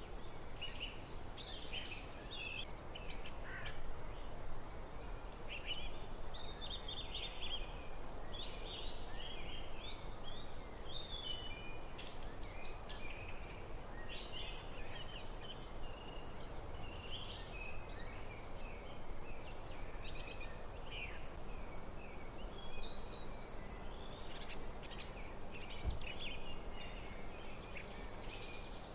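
Several songbirds singing and chirping continuously in a forest, with short warbled phrases overlapping, over a steady low background hiss.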